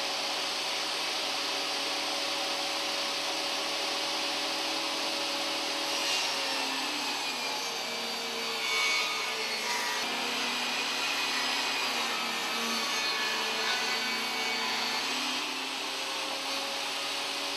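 Ryobi BT3100 table saw running through a beveled rip cut. Its motor pitch drops as the blade takes the wood about six seconds in, the cutting noise is loudest around nine seconds, and the pitch comes back up near the end as the blade clears the cut.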